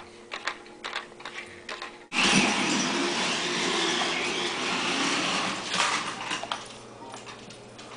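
Small motor and gears of a toy remote-control car ticking and whirring faintly, then about two seconds in a loud, steady rushing noise starts abruptly and lasts about five seconds before falling away.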